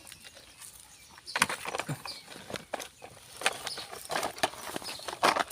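Irregular clicks, knocks and scrapes, sparse at first and coming thick and fast from about a second and a half in.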